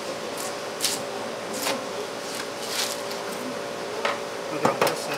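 Knife strokes while cutting tuna: about seven short, sharp scraping strokes at uneven intervals, two close together near the end, over a steady hum.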